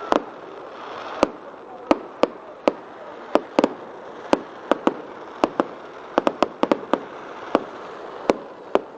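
Fireworks going off: a run of sharp bangs and cracks at irregular intervals, about two a second with some quick clusters, over a steady background rush.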